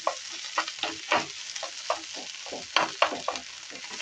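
Wooden spatula stirring and scraping grated boiled potato around a hot nonstick frying pan, with irregular scrapes and knocks against the pan a few times a second over a light sizzle of oil.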